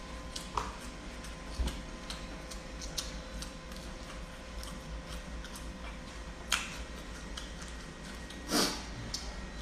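A person eating with her fingers: small chewing and lip-smacking clicks, with a short breathy noise about six and a half seconds in and a louder one near the end, over a faint steady electrical hum.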